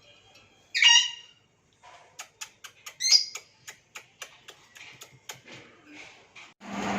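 Pet lovebirds calling: a loud, shrill squawk about a second in, another around three seconds, with a run of short sharp chirps in between. A steady hiss and low hum comes in just before the end.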